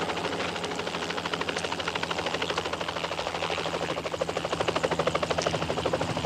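Helicopter flying low overhead, its rotor beating in a rapid, even chop that grows louder in the second half.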